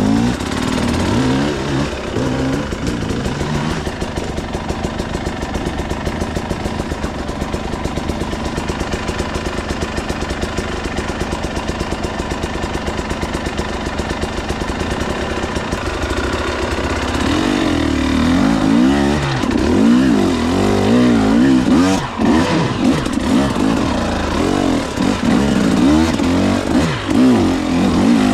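KTM 300 EXC TBI two-stroke enduro motorcycle engine, running at a low, fairly steady speed with a fast even beat for about the first half, then revved up and down repeatedly from about sixteen seconds in.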